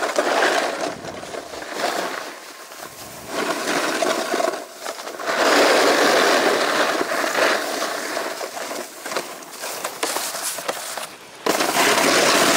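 Snowboard sliding down a groomed slope, its base and edges scraping over the snow in a steady hiss that swells and fades in several long surges.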